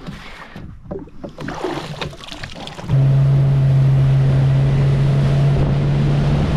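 Clicks and knocks of handling as the bow-mounted electric trolling motor is stowed. About three seconds in, this cuts abruptly to a boat's outboard engine running steadily at speed, a low steady hum under the rush of water and wind.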